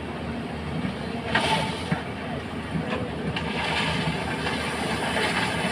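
Hydraulic excavator running as it works its arm and bucket, with a steady machine noise and a few metallic knocks, the loudest about a second and a half in.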